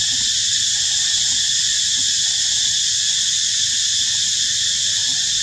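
Steady, high-pitched drone of a cicada chorus, unbroken and unchanging in level.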